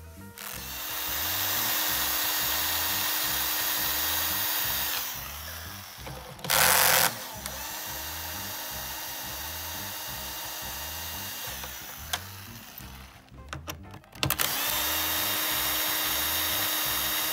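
A handheld power tool's motor running in long steady runs, with a short louder burst about seven seconds in, a pause near fourteen seconds and a restart at full level.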